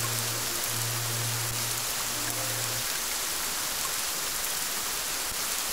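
Steady rain, an even hiss, with a low held musical drone underneath that stops about three seconds in.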